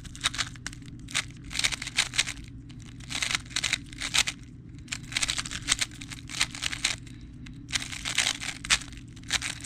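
Rapid clacking and clicking of a Tornado V3 speed cube's plastic layers being turned during a speedsolve, in quick flurries of turns with short pauses between them. The cube is running dry and, by its owner's account, needs lubing.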